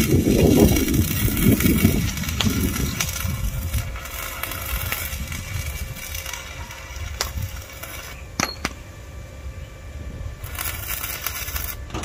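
Stick-welding arc crackling and sizzling as an electrode welds steel window grill bars. It burns in two runs: a long one over the first several seconds, then a pause and a short second run near the end.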